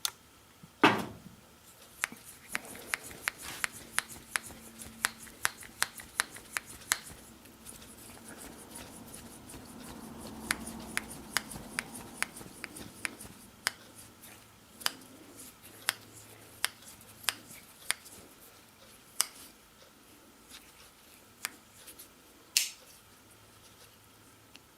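Hand work on an old Victorinox Pioneer pocketknife: a quick run of sharp small clicks, two or three a second, then a stretch of soft rubbing and scraping, then scattered single clicks.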